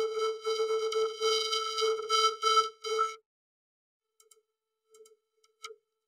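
Logo-animation soundtrack run through a vocoder, heard as a steady buzzy chord of held tones that swells and dips with the original sound. It cuts off about three seconds in, leaving silence with a few faint short blips.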